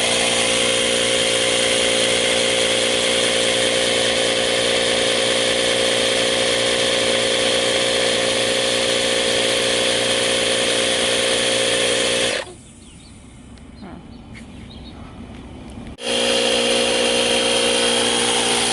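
The Chevy Volt's 12-volt tire repair kit compressor runs with a steady, even drone, pumping sealant and air into a flat tire. About twelve seconds in it cuts off for a few seconds, then starts again at the same pitch.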